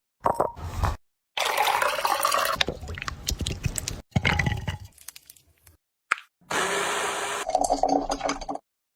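Kitchen cooking sounds in short snippets with abrupt cuts between them, mostly liquid being poured or splashing.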